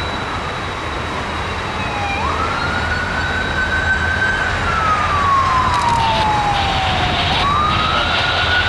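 Emergency vehicle siren wailing: its pitch climbs sharply about two seconds in, sinks slowly through the middle and climbs again near the end, over a steady low rumble.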